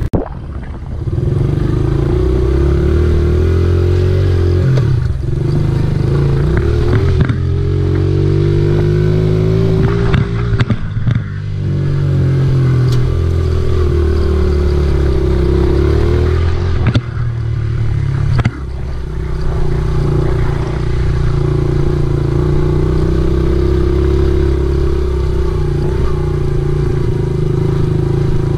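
Honda XR70R mini dirt bike's single-cylinder four-stroke engine running under way, its revs rising and falling with the throttle and dropping off briefly a few times.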